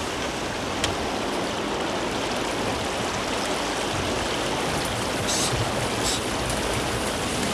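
Steady rush of water along a sailing barge's hull, with a single faint click about a second in.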